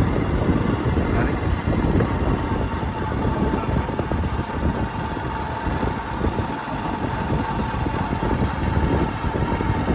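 Yamaha motorcycle engine running steadily while the bike rolls along at low speed without the throttle being worked, mixed with wind noise on the microphone. A faint steady whine joins in about two seconds in.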